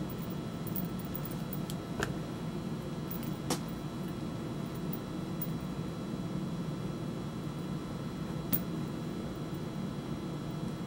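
Hand-stitching a leather sheath: three faint sharp clicks as the needles and leather are handled, over a steady low hum of room noise.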